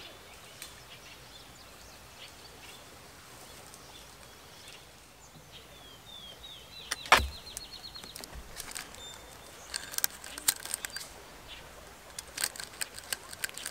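Fence-gate handling sounds against a faint outdoor background: a single sharp knock about seven seconds in, then a scatter of sharp clicks and rattles from a PVC pipe gate post, plastic deer netting and zip ties being fitted.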